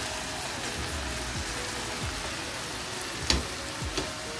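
Chicken pieces sizzling in hot oil on an iron tawa, a steady frying hiss, with a sharp knock about three seconds in and a softer one just after.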